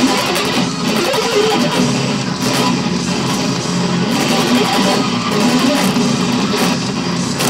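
Extended-range electric guitar playing progressive metal, dense and continuous, with sharp high strikes through it.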